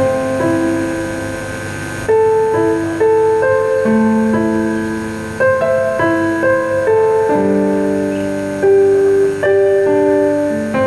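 Keyboard or piano playing a slow, gentle melody over chords, with new notes struck every second or so.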